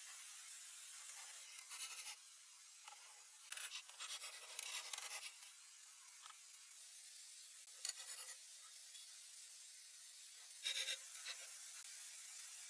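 Several short bouts of rubbing and scraping, in four brief clusters, over a steady faint hiss.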